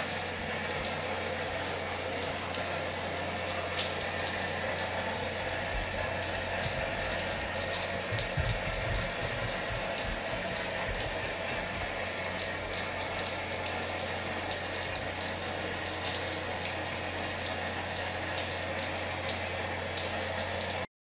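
A steady rushing hiss over a low, even hum, with a few dull low thumps about eight seconds in; it cuts off abruptly near the end.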